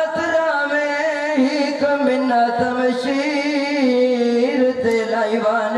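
A man chanting a mournful Muharram majlis lament (vain) into a microphone, in long held notes that waver and glide slowly in pitch.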